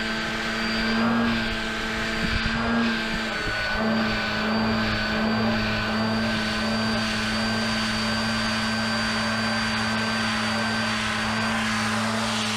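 Electric-motor-driven propeller spinning inside a 3D-printed duct (a ducted rotor), a steady whine with several tones. Over the first few seconds its pitch and level waver as the duct bounces on the pad in low ground effect, a very distinct noise change; then it holds steady.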